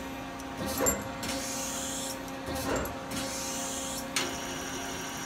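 Turret of a Doosan Lynx 220 LMA CNC turn-mill center indexing between tool stations. Each index is a brief whirring clunk, twice about two seconds apart, over a steady hum of the machine's motors and hydraulics. A high hiss cuts off with a sharp click about four seconds in.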